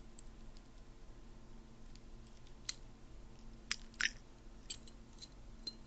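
Small, sharp metallic clicks, about half a dozen spaced irregularly, as a key is worked in a double profile pin-tumbler cylinder to drop its pins.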